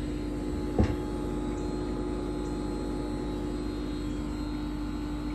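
Steady mechanical hum holding one constant tone, with a single short knock about a second in.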